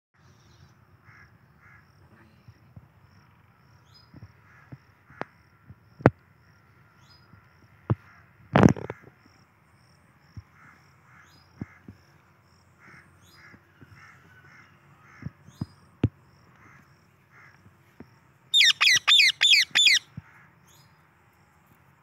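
Indian ringneck parakeet giving a quick run of about six loud, harsh screeches near the end. Beneath it, a faint high chirp repeats about twice a second, with a few scattered clicks and one louder thump partway through.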